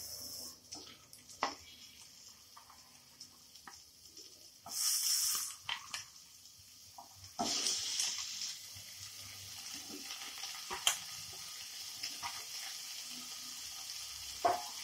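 Steamed cauliflower florets going into a hot kadai with a little oil and sizzling. There are two louder bursts of sizzle, about five and seven and a half seconds in, as batches land, then a steady faint sizzle with a few light knocks of florets on the pan.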